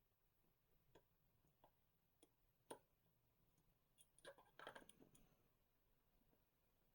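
Faint, scattered metallic clicks and ticks of a lock pick and tension tool working the pins of an EVVA Akura 44 dimple lock, with a denser run of clicks and light scraping about four to five seconds in.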